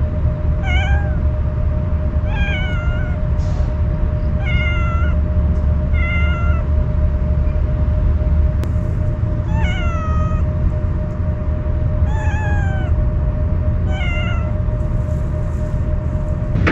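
A wary stray cat meowing repeatedly: about seven short calls, each falling in pitch, a couple of seconds apart, over a steady low rumble.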